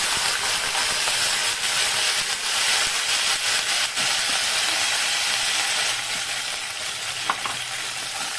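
Ginger-garlic paste sizzling and spattering in hot oil in a kadhai, stirred with a steel spoon. The sizzle eases a little about six seconds in.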